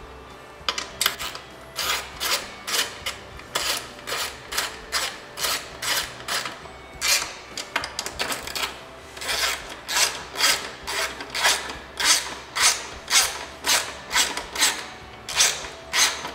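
Hand ratchet wrench clicking in quick back-and-forth strokes, about two a second, as it runs 6 mm bolts into the tensioner of a snowmobile chain case; a brief pause about nine seconds in before the strokes resume.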